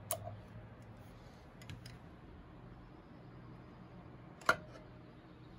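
Small metallic clicks as an S&S Super E carburetor and its throttle cable linkage are handled: one sharp click just after the start and a louder one about four and a half seconds in, each with a brief ring, and a few faint ticks between them, over a low steady hum.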